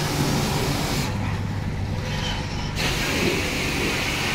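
Street noise: a steady low motor hum under loud hissing that drops away for a couple of seconds in the middle and returns.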